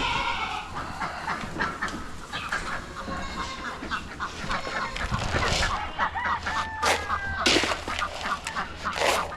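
Poultry calling: a busy run of short, rapid calls, with a few louder, noisier sounds in the second half.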